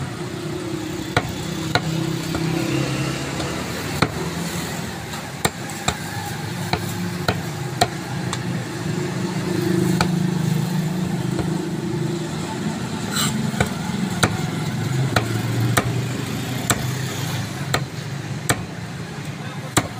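A large curved knife chopping a silver carp fillet into pieces on a round wooden chopping block: a series of sharp chops, often about two a second, with short pauses between runs. A steady low hum runs underneath.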